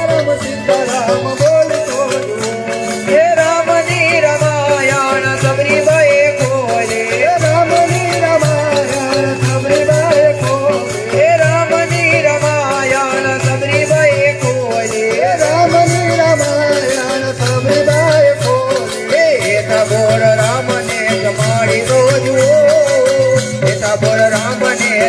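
Devotional dhun music: a wavering lead melody over a steady beat, with shaken rattle-type percussion keeping time.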